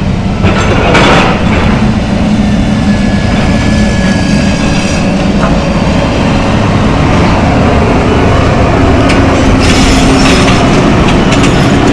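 John Deere excavator working on a building demolition: the engine running steadily under load, with debris crunching and metal scraping. There are louder crashes about a second in and again near the end.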